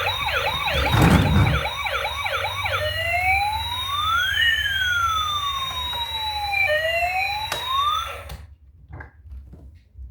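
Electronic siren from a toy emergency vehicle: a fast repeating yelp of rising sweeps, then a slower wail of two tones gliding in opposite directions, cutting off about eight seconds in. A thump about a second in.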